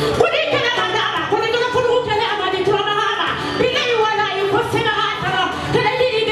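A woman singing, with music behind her, and hands clapping along.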